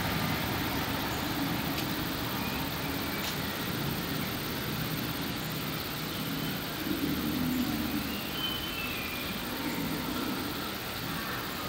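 Steady low background rumble with a few faint, short high-pitched chirps.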